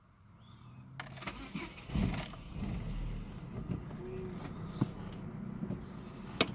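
Vauxhall Astra 1.4 16-valve X14XE petrol engine being started just after new spark plugs were fitted: it catches about two seconds in and settles into a steady idle. A sharp click near the end.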